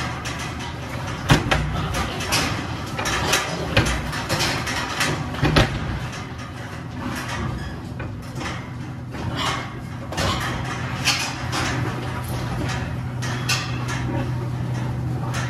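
Steel sow-stall gates clanking and rattling as they are opened, with sows shuffling and knocking against the bars as they back out of the stalls. A steady low hum runs underneath.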